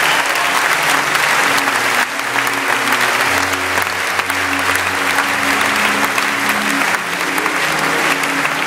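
A large audience applauding steadily, with music and its held low notes playing underneath.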